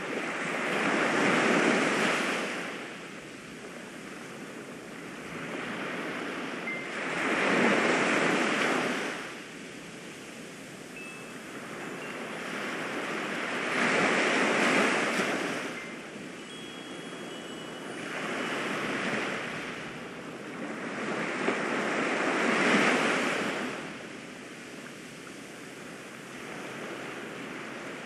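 Ocean surf: waves rolling in and washing back, each surge swelling up and fading away about every six to seven seconds.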